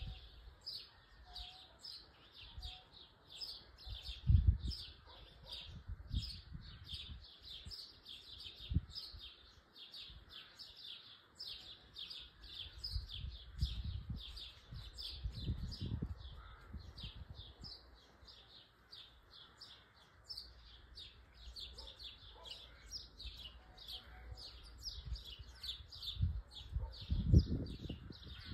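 High, short chirps repeating steadily about three times a second without a break, with irregular low rumbles underneath that peak about four seconds in and again near the end.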